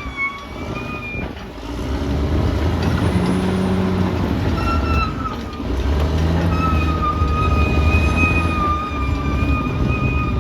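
Caterpillar D6R XL bulldozer's diesel engine running under load, pulling harder about two seconds in and again about six seconds in. A steady high whine sits over the engine for the first second and again through the last four.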